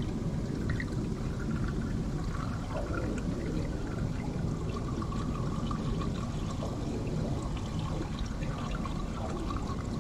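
Swimming-pool water trickling and lapping steadily, with small splashes and bubbles breaking the surface.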